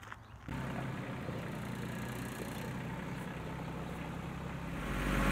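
Farm tractor engine running steadily. It starts suddenly about half a second in and grows louder near the end.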